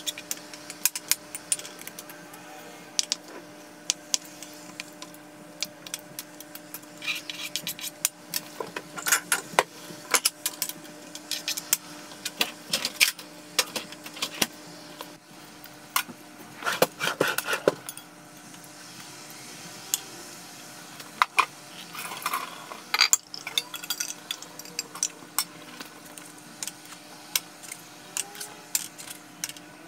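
Kitchen food-prep clatter: a knife, glass meal-prep containers and dishes clicking and clinking on a countertop and cutting board, in scattered irregular bursts over a steady low hum.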